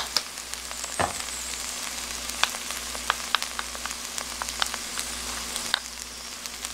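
A hot wok of garlic scapes and seasoning crackling and sizzling softly with the burner off, the heat left in the pan still frying the oil. Scattered small pops run throughout, with a sharper knock about a second in, as a spoon scrapes syrup off into the pan.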